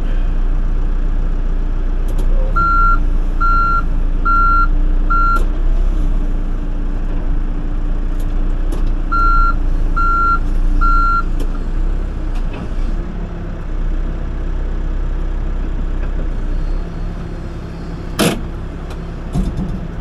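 Backhoe's diesel engine running steadily, heard from the cab, while a backup alarm beeps four times, then three more times a few seconds later, about one beep a second. A single sharp knock near the end.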